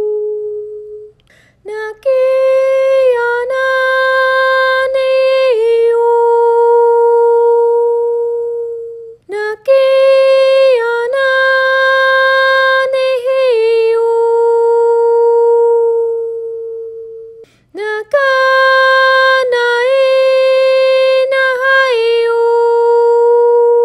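A steady pure tone dies away at the start, then a wordless, high sung tone is held on one pitch with short slides and dips between notes. The same phrase comes three times, each about seven seconds long, with a brief break between them.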